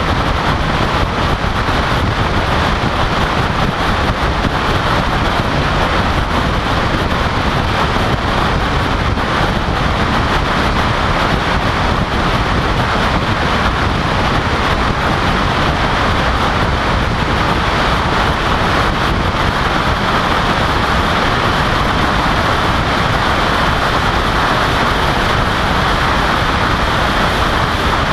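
Steady wind and road noise of a car travelling at highway speed, heard on a camera mounted outside the car: air rushing over the camera and tyre noise from the asphalt, with no change throughout.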